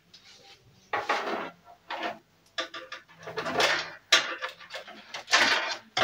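Irregular clattering and rustling of small hard computer parts being handled and rummaged through, with a few sharp knocks.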